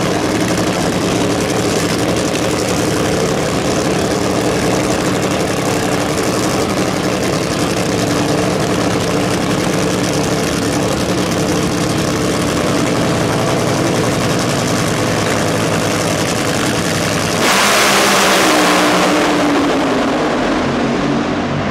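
Two Top Fuel Funny Cars' supercharged nitromethane V8s idling steadily and loudly on the starting line. About 17 seconds in both cars launch at full throttle in a sudden, much louder blast, and the engine pitch falls as they run away down the track.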